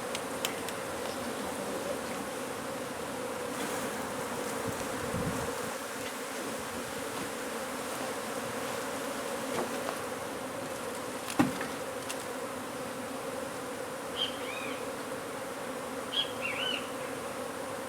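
A mass of disturbed honeybees buzzing in a steady, dense hum: the colony is agitated by being opened up. A single sharp knock about eleven seconds in.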